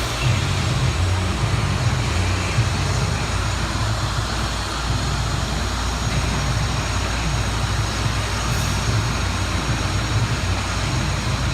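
Steady machinery rumble with a hiss over it, no clear rhythm, typical of construction equipment running.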